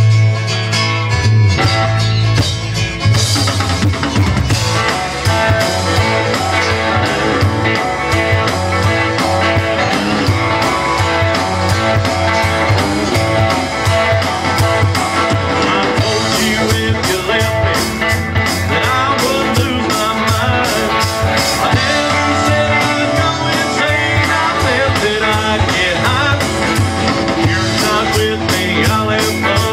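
Live band playing amplified music: acoustic guitar, electric guitars and drum kit, with a strong bass line and a steady beat.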